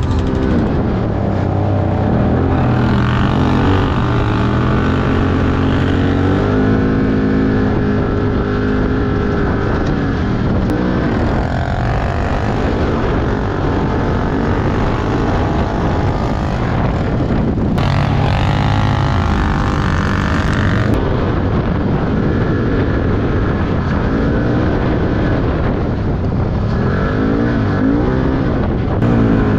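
Side-by-side (SSV) engine running under load on an off-road trail. The engine note rises and falls repeatedly with the throttle.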